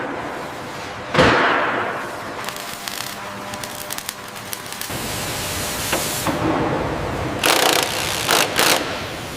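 Heavy-machinery factory noise. A sudden hit about a second in dies away over about a second. Scattered clicks follow, then three short bursts of hiss near the end, all over a faint steady hum.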